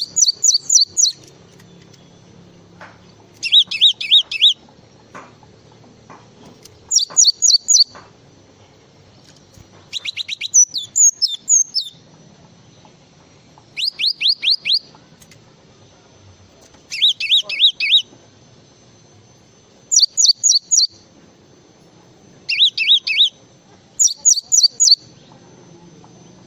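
Great tit singing: about ten bursts of rapidly repeated high, sharp notes, each burst lasting about a second, with pauses of a couple of seconds between them.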